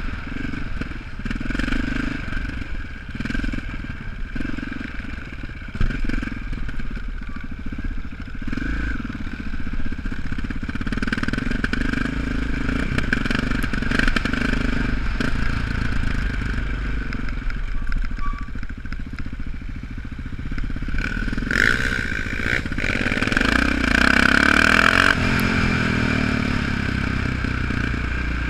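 Big single-cylinder four-stroke supermoto motorcycle heard from on board, its engine rising and falling in pitch with the throttle and gear changes, with wind noise on the helmet microphone. It is loudest with a rising rev between about three-quarters of the way in and near the end.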